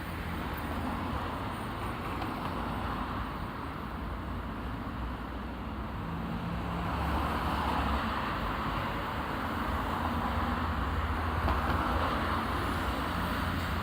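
Road traffic at an intersection: a steady hum of cars and engines passing, swelling louder in the second half as vehicles go by closer.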